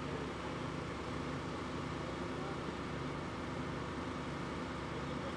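Steady drone of idling heavy vehicle engines, an unchanging low hum.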